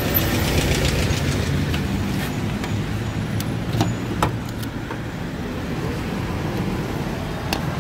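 Steady road traffic rumble. A few sharp clicks about halfway through as a key turns in a car's trunk lock and the lid unlatches, and one more click near the end.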